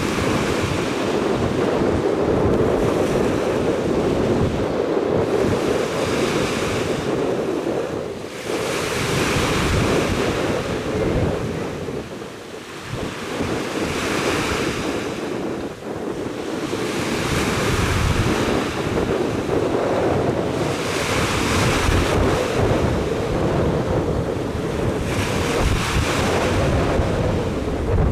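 Wind rushing over the microphone, swelling and easing in surges every few seconds, with a dip in the middle.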